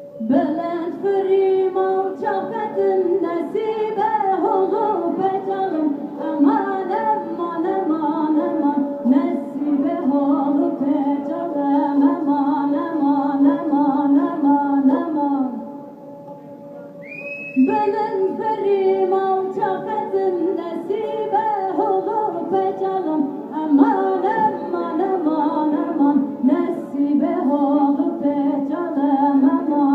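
Female voice singing a Kurdish folk song live, with an ornamented, wavering melody over a steady held drone. The singing breaks off for about two seconds midway, then resumes.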